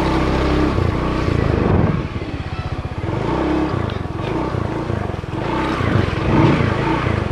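Motorcycle engine running as it is ridden slowly, its revs rising and falling.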